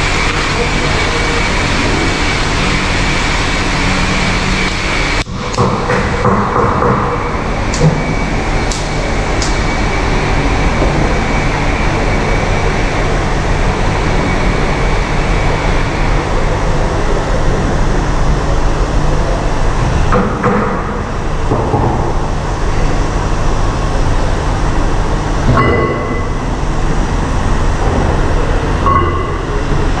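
Steady low mechanical rumble and hum of workshop machinery, with a few brief knocks.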